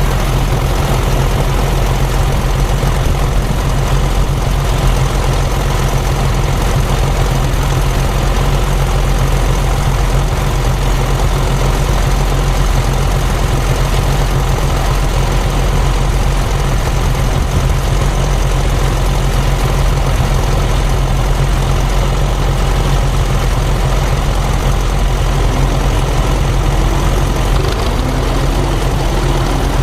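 Tractor engine running steadily with a deep hum. A second, higher steady tone comes in near the end.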